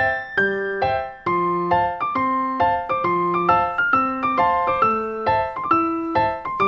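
Keyboard music with an even flow of notes, about two or three a second, low notes sounding under higher ones.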